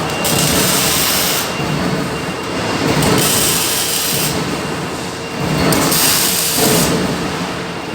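Continuous metalworking noise from the fabrication of a steel cable holder: a loud harsh hiss that turns brighter and duller every second or two.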